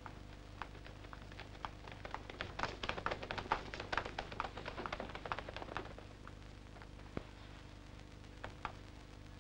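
Quick footsteps of several children running on a cobbled street: a few steps at first, a fast clatter in the middle, thinning to a few steps near the end, over a steady low hum.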